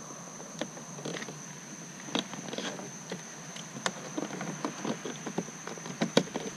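Scattered light clicks and taps of plastic trim being handled and fitted, as the interior door handle's cover is pushed back into place. Underneath runs a faint steady high-pitched whine.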